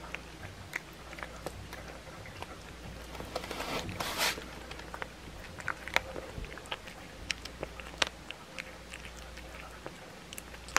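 A blue tortoiseshell cat chewing a raw chicken back, the bones crunching in sharp, irregular cracks, with a longer, louder burst of noise about four seconds in.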